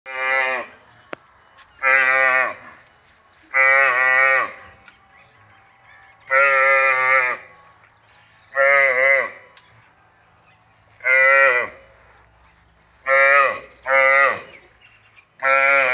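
Water buffalo calf calling over and over: nine short, high bawls, each under a second long with a pitch that falls at the end, coming every one to two seconds.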